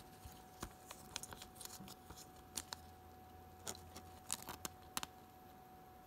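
Faint crinkling and scattered small clicks of a soft plastic penny sleeve being handled as a trading card is slid into it.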